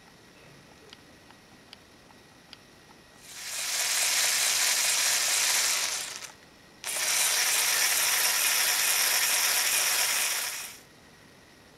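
LEGO Power Functions XL motor driving the trike's plastic Technic gear train and differential, a steady mechanical whir. It spins up about three seconds in, stops for half a second, starts again suddenly, and cuts off near the end.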